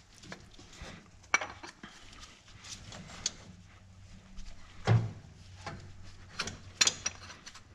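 Scattered metallic clinks and knocks of an alternator and its mounting bolts being handled and fitted to the bracket on the engine, with a heavier knock about five seconds in.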